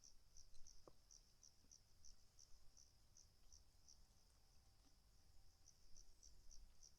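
Faint insect chirping: short, high chirps at one pitch, repeated steadily about three times a second.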